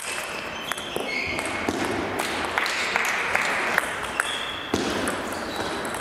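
Table tennis balls clicking off bats and tables at scattered moments, from this match and neighbouring tables, ringing in a large hall. A few short high squeaks come in between.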